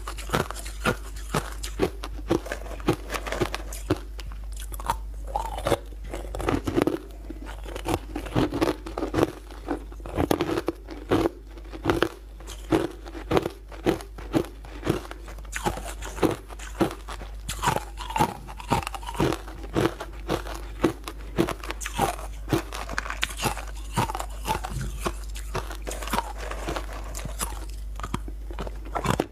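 Close-miked biting and chewing of crunchy, icy frozen chunks: repeated sharp crunches, about one or two a second, with wet chewing between.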